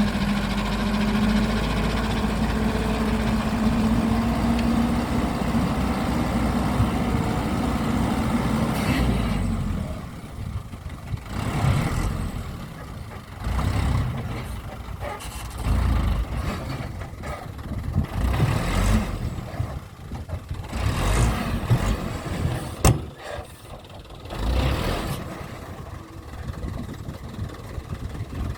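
A vehicle's motor hums steadily for about nine seconds, then runs in short, irregular bursts with pauses between them.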